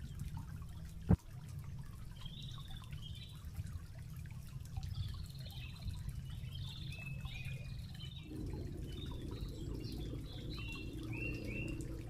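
Water trickling among rocks as steady outdoor ambience, with small birds chirping in short repeated notes from about two seconds in. A single sharp knock sounds about a second in.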